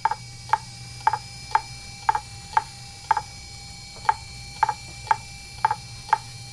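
2.5-inch laptop hard drive (Fujitsu MHK2048AT) clicking over and over, about two sharp clicks a second, over a steady low hum. This repeated clicking is the classic sound of a drive whose heads keep failing to read.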